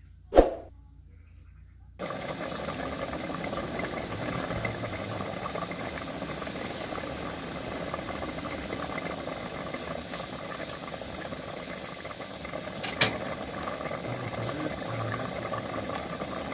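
A sharp click about half a second in, then from about two seconds in a steady hiss that runs on, with one more click near the end.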